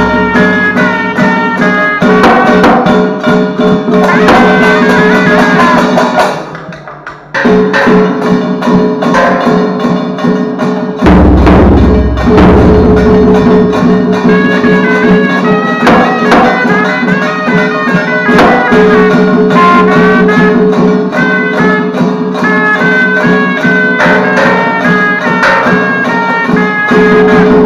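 Vietnamese traditional ritual music ensemble playing: a high stepping melody over a steady held tone, with a small barrel drum and hand cymbals beating along. The music drops away briefly about seven seconds in, and a deep drum stroke lands about eleven seconds in.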